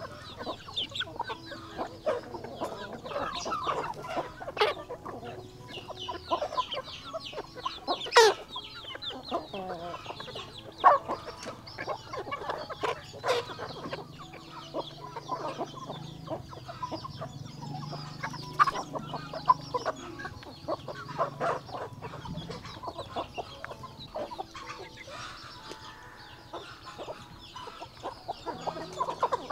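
Chickens clucking continuously, with a few sharper, louder clicks among the calls.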